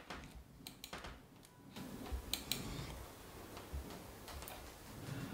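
Camera shutter firing twice, each shot a quick double click, over faint low room noise.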